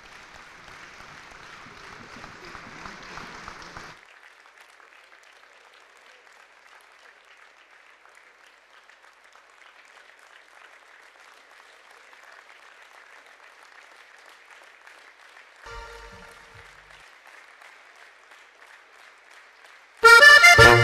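Audience applauding, fuller for the first four seconds, then lighter and steady. About a second before the end, loud music starts suddenly.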